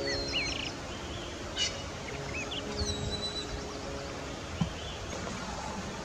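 Soft background music with held notes, under a steady outdoor hiss, with small birds chirping a few quick, sweeping notes in the first half.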